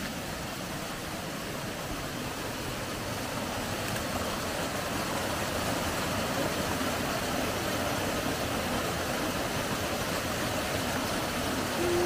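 Small waterfall rushing steadily over rock ledges into a pool, growing a little louder a few seconds in.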